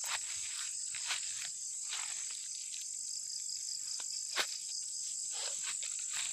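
Steady high-pitched chorus of insects, with a few soft clicks scattered through it.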